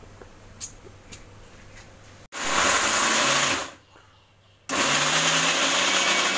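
Electric mixer grinder with a stainless steel jar grinding peanuts, green chillies, garlic and a little water into a chutney paste, run in two pulses: the motor starts about two seconds in, runs just over a second and winds down, then starts again a second later and runs to the end. Before it, a few light clicks of the jar being closed and seated.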